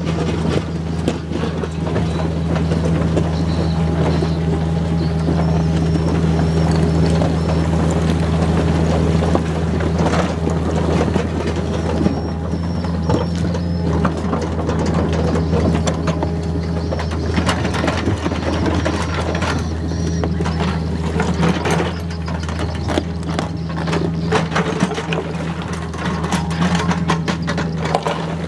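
Komatsu PC45 mini excavator's diesel engine running steadily, with frequent clanks and knocks from the bucket and rubble as it works the broken road surface.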